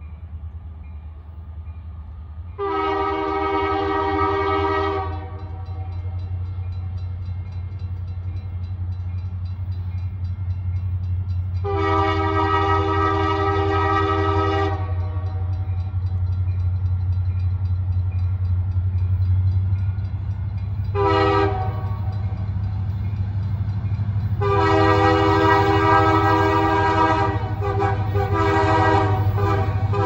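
Approaching freight train's locomotive air horn sounding four blasts, long, long, short, long (the grade-crossing signal), its several chime notes sounding together, over the steady low rumble of the diesel locomotive.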